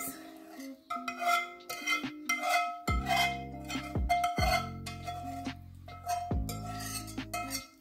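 A wire whisk scraping and tapping against the inside of a skillet in quick repeated strokes as thick gravy is scraped out, with background music underneath.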